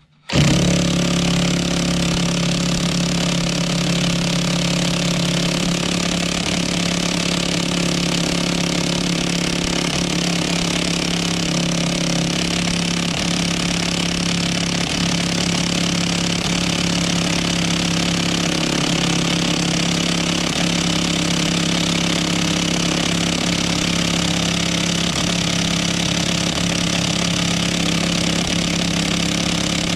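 Half-inch impact gun hammering steadily on a T50 Torx bit, on a steering-wheel bolt that barely turns because it is seized with too much Loctite thread locker.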